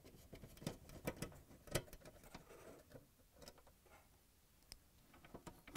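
Faint, scattered clicks and light taps of hand tools and fingers working at a dishwasher's electronic control board, its wire plugs and mounting screws.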